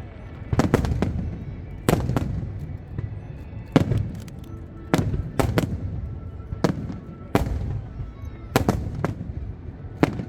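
Aerial fireworks shells bursting in quick succession: about a dozen sharp bangs, some a fraction of a second apart, over a steady low rumble.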